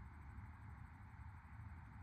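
Near silence: room tone with a faint steady hiss and low hum.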